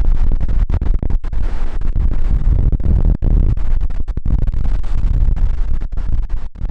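Strong gale-force wind buffeting the camera microphone: a loud, heavy low rumble with many brief dropouts, over the noise of large waves on the lakeshore.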